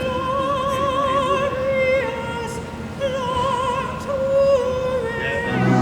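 A solo operatic voice singing long held notes with a wide vibrato, each note lasting a second or two. Near the end, fuller accompaniment comes in.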